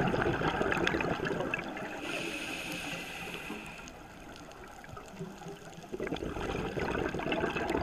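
Scuba diver's breathing heard underwater through the camera housing: a loud bubbling rush of exhaled air, a hiss of inhalation through the regulator about two seconds in, then bubbling again near the end.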